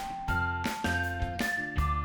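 Upbeat background music: a bright keyboard melody over a steady beat.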